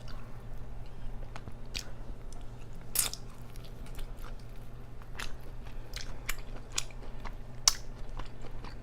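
Close-up chewing and biting of Hot Cheeto–crusted fried chicken and mozzarella: irregular crisp crunches and mouth clicks, the sharpest a little before the end, over a steady low hum.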